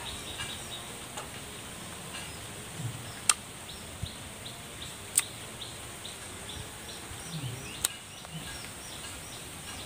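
Forest ambience with small birds chirping repeatedly over a steady high-pitched tone. Three sharp clicks, the loudest sounds, come about two seconds apart.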